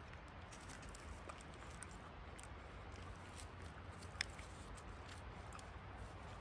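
Faint scraping and small clicks as a knife blade scrapes and cuts wild roots against a log, with one sharp click about four seconds in.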